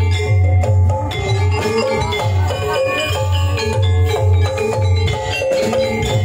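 Javanese gamelan music: bronze metallophones ring out a quick melody over a steady, regular low drum beat.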